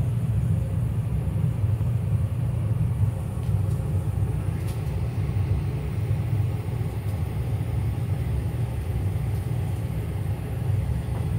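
Steady low rumble of a house's central air (HVAC) system running.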